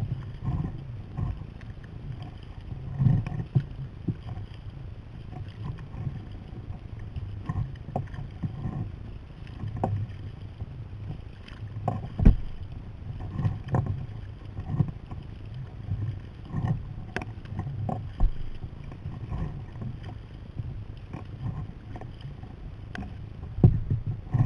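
Sea kayak being paddled: the paddle blades dip and splash about once a second, with a few sharp knocks, over a steady low rumble.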